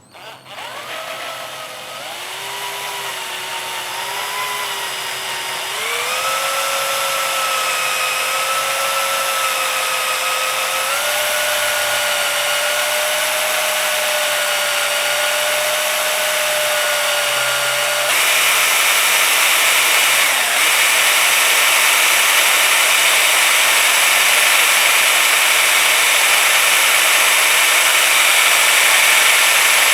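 Power drill spinning a polishing pad charged with Brasso against a surface. The motor whine starts at once and climbs in pitch in steps as the drill speeds up, and about 18 seconds in it turns into a louder, rougher whir as the pad bears down and buffs.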